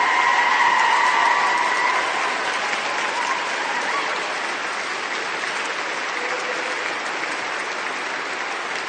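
Large audience applauding, a dense steady clatter of many hands, a little louder in the first couple of seconds and easing off slightly after.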